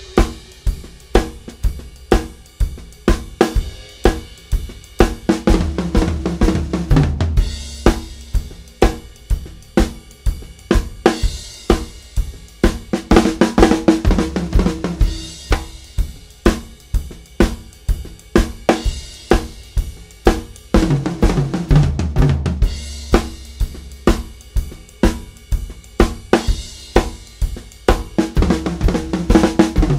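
Drum kit playing a steady groove, snare and bass drum hits at about two a second with cymbals, broken about every eight seconds by a fast fill of Herta stickings (two quick notes followed by two slower ones) run around the toms. Each fill steps down in pitch from the high tom to the floor tom before the groove returns.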